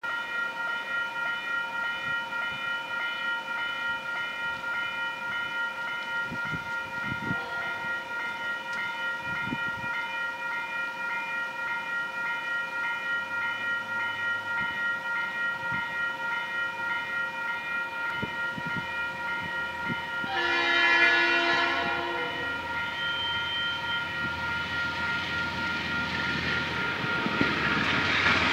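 Level crossing warning bells ringing steadily at about two strokes a second. About two-thirds of the way in, the approaching train's horn sounds once for about two seconds, and near the end the noise of the oncoming diesel locomotive builds.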